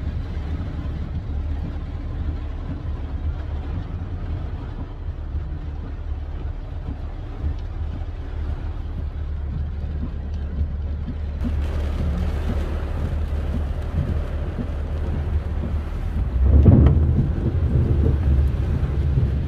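A car driving in heavy rain: a steady low rumble of engine and tyres with the hiss of rain. About twelve seconds in, a brighter hiss joins, and a louder rush swells briefly near the end.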